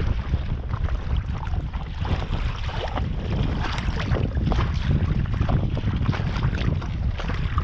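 Wind buffeting the microphone in a steady low rumble, over water slapping and splashing irregularly against the hull of a Sea Eagle 300x inflatable kayak sailing through choppy water.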